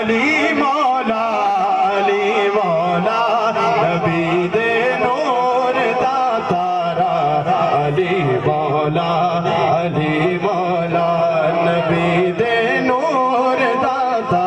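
A man singing an Islamic devotional kalam into a microphone, the melody wavering and ornamented in long, unbroken phrases.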